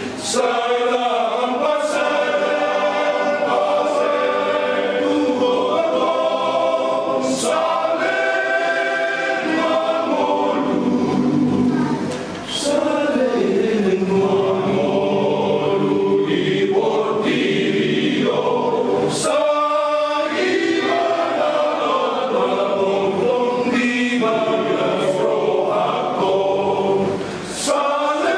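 Men's church choir singing a hymn together, with short breaks for breath about twelve seconds in and again near the end.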